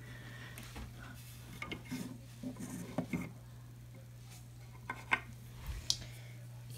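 Plastic Breyer model horses being shifted about on a shelf: scattered light clicks and short scrapes as the figures knock and slide against each other and the shelf, over a faint steady hum.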